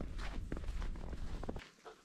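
Footsteps crunching in snow, several steps, over a heavy low rumble on the microphone. About one and a half seconds in the rumble cuts off and only faint steps remain.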